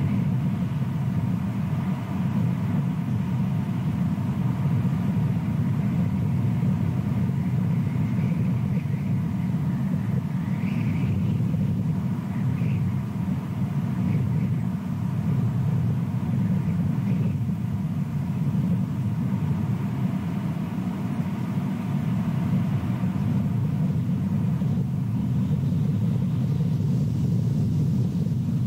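Steady low rumble without a break, with a few faint short high-pitched calls about ten to thirteen seconds in.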